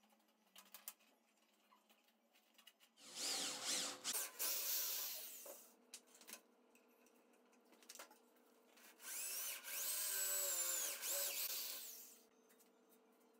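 Electric drill running in two bursts of a few seconds each, its whine rising as it spins up, boring into a small piece of steel tube clamped in a bench vise. Light handling clicks come before the first burst.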